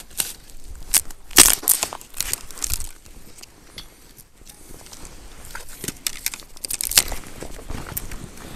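Dry twigs and sticks crackling and snapping as they are handled, broken and laid on a smoky, newly lit campfire: irregular sharp cracks, with a loud cluster about a second and a half in and another near the end.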